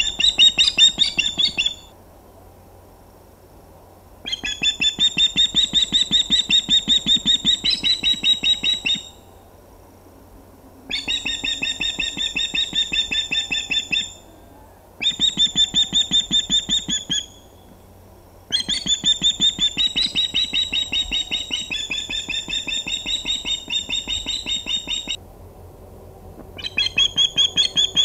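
Female osprey giving alarm calls: rapid runs of high, repeated piping notes in bouts of several seconds, with short pauses between them. The calls are the warning of another osprey too close to the nest.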